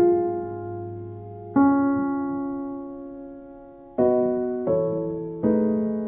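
Slow, soft background piano music: five chords struck one after another, each left to ring and fade before the next.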